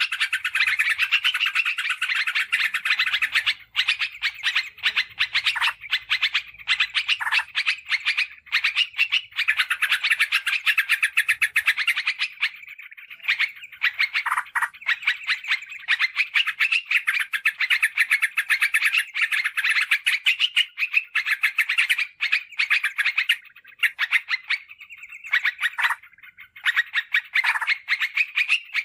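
Yellow-vented bulbul (trucukan) song played as a lure call: a rapid, dense run of short chirping notes, nearly unbroken, with a few brief pauses.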